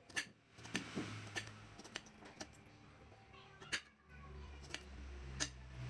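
Kitchen knife dicing soft mango on a ceramic plate: faint, irregular clicks as the blade taps through onto the plate, about seven in a few seconds.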